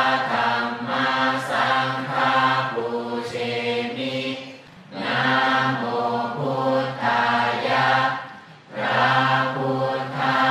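A group of voices chanting Buddhist verses together in long phrases on a near-steady pitch, with short pauses for breath about five and eight and a half seconds in.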